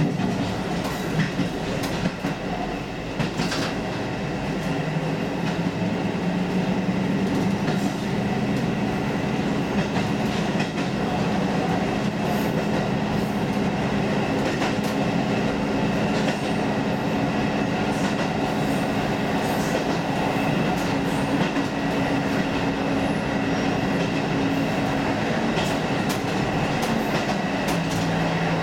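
Diesel railcar engine running steadily, heard from inside the cab while the train stands still. Its hum rises slightly a few seconds in and drops to a lower note near the end.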